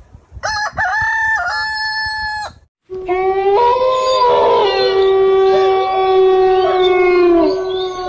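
A rooster crows once, about two seconds long. A moment later a red fox gives one long, steady call that lasts more than five seconds and holds several pitches at once.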